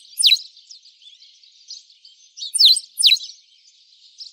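Birdsong: a steady background of many small high chirps, with two pairs of loud, quick downward-sliding whistled notes, one pair at the start and another about two and a half seconds in.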